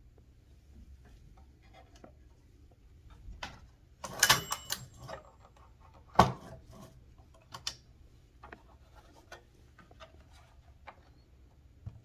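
Carriage of a Smith Corona Super-G manual typewriter being slid by hand. A burst of clacking and rattling with a short metallic ring comes about four seconds in, then a sharp knock about two seconds later, then a few scattered light clicks.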